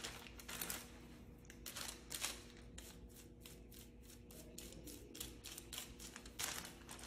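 Faint, irregular rustling and crinkling: a tint brush stroking hair-lightener paste onto hair laid over a sheet of foil, the foil crinkling in the gloved hand.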